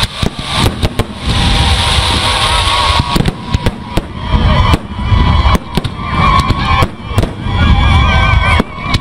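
Fireworks going off in a rapid run of sharp bangs and pops over a continuous low rumble, with wavering whistle-like tones joining about three seconds in.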